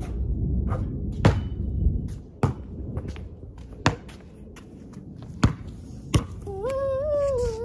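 A Wilson basketball bouncing on a concrete driveway as it is dribbled: about five sharp single bounces, irregularly spaced roughly a second apart.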